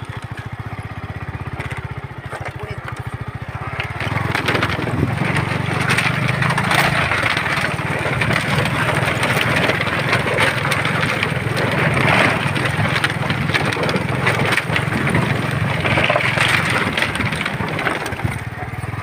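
Motorcycle engine running at low speed as the bike rides over a woven bamboo bridge deck. From about four seconds in, a steady rushing noise with scattered clicks joins the engine.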